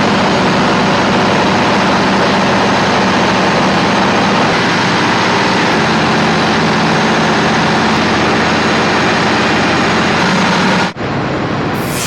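Oil drilling rig machinery running loud and steady: a heavy engine drone under a dense wash of mechanical noise, the low pitch shifting slightly about halfway. It cuts off abruptly near the end.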